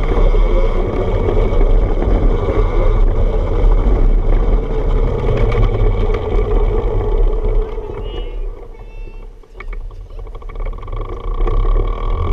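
Electric trike riding over a wooden boardwalk: a steady rumble of the wheels on the planks and the running drive, shaken through the frame. It falls away for a few seconds about two-thirds of the way in as the trike eases off, then picks up again near the end.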